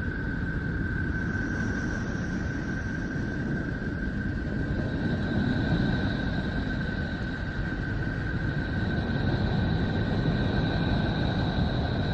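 Space sonification, scientific data turned into sound: a steady low rumbling drone with a thin high tone held over it, and a second, higher tone joining about five seconds in.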